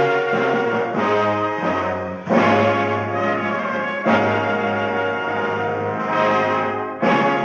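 Orchestral film-trailer music with brass to the fore, playing loud held chords that change every second or two.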